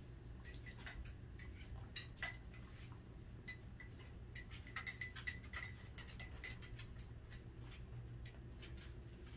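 Dachshund chewing raw chicken: irregular sharp, crunchy clicks, busiest about five seconds in, over a low steady hum.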